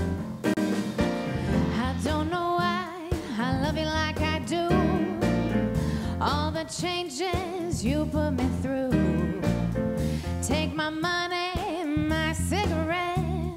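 A pop-style song playing: a solo singer with a wavering vibrato over a steady instrumental backing with low bass notes.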